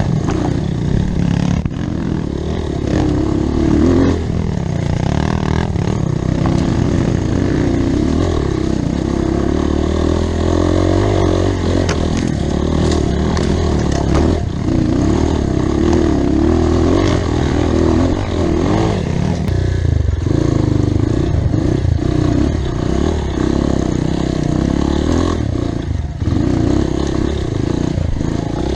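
Off-road motorcycle engine running continuously, its note rising and falling as the revs change.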